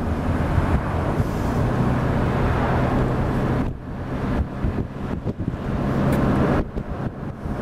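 Car running, heard from inside the cabin: a steady low engine hum under a rushing noise, dipping briefly twice.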